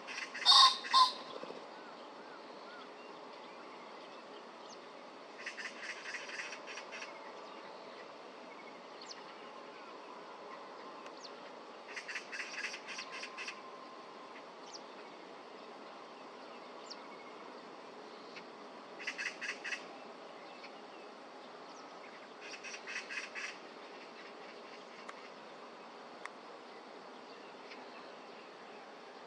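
Male common pheasant's crowing display: two loud, harsh calls about half a second apart, together with a whirr of wing-beats, right at the start. Later, four short bursts of rapid high trilling come and go over a quiet background.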